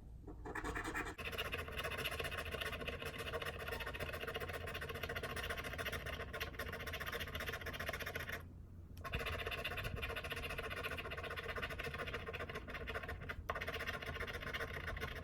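Scratch-off lottery ticket being scratched rapidly, a continuous fine scraping with a brief pause about eight and a half seconds in.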